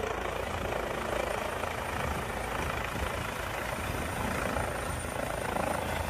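Helicopter's rotor and engine noise, steady and unbroken, as it comes down to land.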